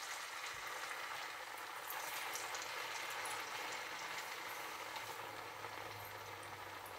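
Potato koftas deep-frying in hot oil in a small pan: a steady, even sizzle of bubbling oil.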